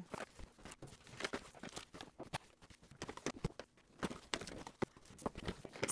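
Irregular light clicks, taps and rustles of plastic-packaged toiletries being lifted out of a cardboard box and set aside.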